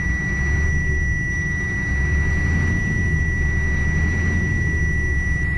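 Mercedes-Benz Actros diesel engine running above idle, heard from inside the cab, to charge the air brake system. It swells a little about half a second and about two seconds in. A thin, steady high-pitched whine sounds throughout.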